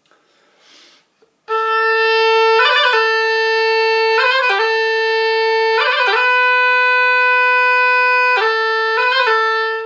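Oboe played in a bagpipe-imitating Celtic style: long held notes, each broken by a quick, snappy flurry of grace-note ornaments, about five times. It starts about a second and a half in and stops near the end.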